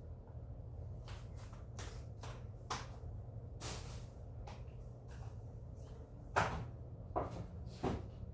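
Scattered short knocks and scrapes from floor-cleaning work, with three louder ones in the second half, over a steady low hum.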